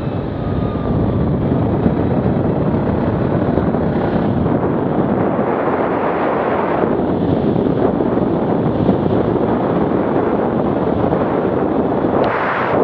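Arctic Cat 650 H1 ATV engine running under way at speed, mixed with wind rushing over the microphone, with a brief louder rush near the end.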